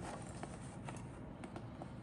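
Faint scattered clicks and rustles of hands holding and shifting a cardboard model kit box, over a low steady background hum.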